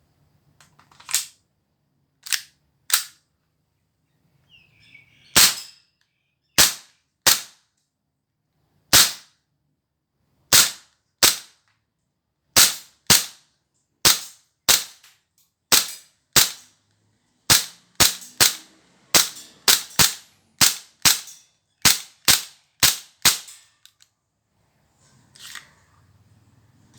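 Tokyo Marui USP9 Custom gas blowback airsoft pistol firing about thirty sharp shots, first single and spaced a second or more apart, then in quick strings of about two shots a second, stopping a few seconds before the end.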